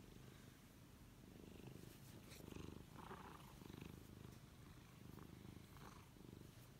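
Domestic cat purring close up, a low, soft, pulsing purr that swells and eases about once a second.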